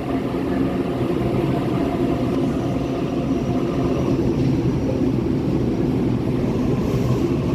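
Sydney Trains A-set (Waratah) electric passenger train, set A73, moving along the platform: a steady rumble with a low hum.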